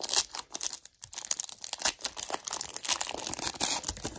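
Foil wrapper of a Panini Prizm trading-card pack being torn open and crinkled by hand: a dense run of crackling, with a brief pause about a second in.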